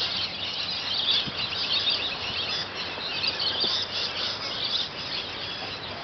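A flock of birds in the trees calling all together: a dense, unbroken chorus of many rapid high-pitched chirps and squeals.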